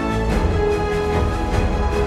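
Background music: sustained tones over a pulsing low beat.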